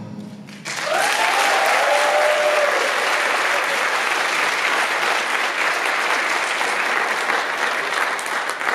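Audience applauding a stage dance performance, starting suddenly about half a second in and holding steady, with a few whooping cheers over the clapping early on.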